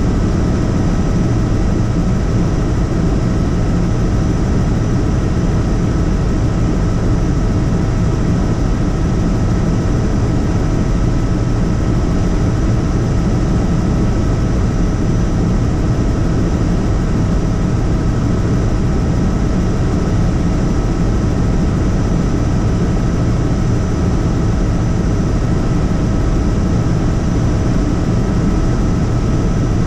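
Helicopter in flight: a loud, steady drone of engine and rotor, with a few thin, steady high tones over it.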